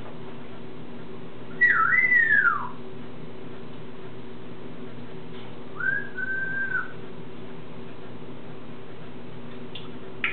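African grey parrot whistling twice: about one and a half seconds in, a whistle that dips, rises again and then slides down, and around six seconds in, a shorter, level whistle. A couple of short clicks near the end, over a steady low hum.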